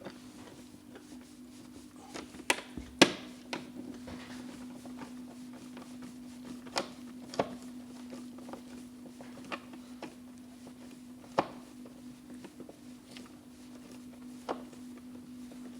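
Scattered clicks and knocks of a screwdriver and screws against a plastic telephone socket being screwed together, over a steady hum. The sharpest knocks come about three seconds in.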